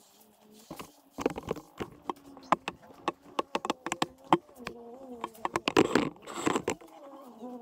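Handling noise from the camera being picked up and carried: a quick, irregular run of clicks, knocks and rubs that starts about a second in and stops near the end, over a faint wavering tone.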